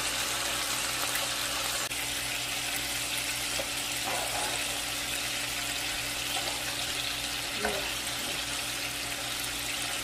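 A large pot of stock boiling with a steady bubbling, soaked rice just added, and a plastic spatula stirring through it. A steady low hum runs underneath.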